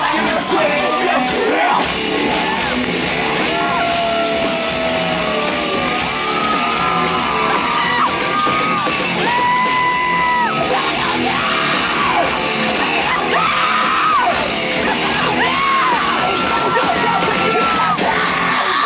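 Live rock band playing loudly, with sung and yelled vocals holding long notes over the band.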